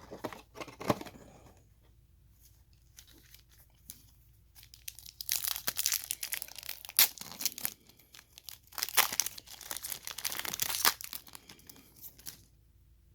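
Trading card pack wrappers being torn open and crinkled by hand, in two rustling bouts with sharp crackles partway through and near the end.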